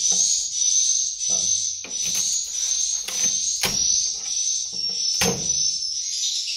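Recorded swiftlet calls playing in a loop through the swiftlet house's tweeter speaker: a high, steady chirping that repeats over and over. Several sharp knocks and scraping from hands working at the nests on the wall are heard over it, the loudest a little past the middle.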